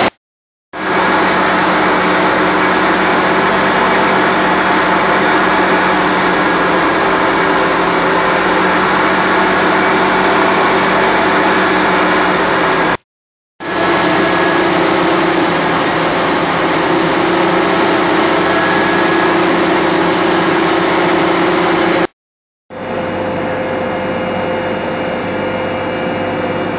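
Case 2390 tractor's six-cylinder diesel running steadily at PTO speed, driving a forage blower that sends corn silage up the fill pipe into a silo. The steady machine noise cuts out abruptly twice and comes back, a little quieter the last time.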